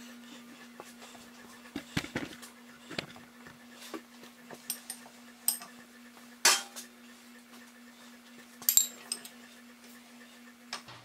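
Scattered clinks and knocks of metal tools and parts being handled at a workbench and vise, the two loudest about six and a half and nearly nine seconds in, over a steady low hum.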